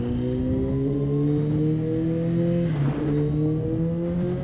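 Kawasaki Ninja H2's supercharged inline-four engine pulling under acceleration, its pitch climbing steadily. The pitch dips briefly about three seconds in, then climbs again.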